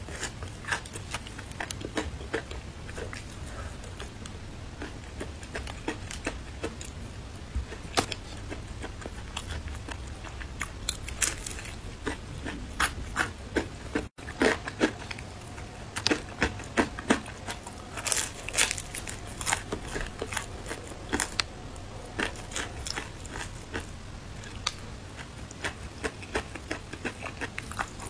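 Crispy breaded fried chicken being bitten, chewed and torn apart by hand: a run of sharp crackles and crunches as the fried coating breaks, with wet chewing between them, busier in the second half.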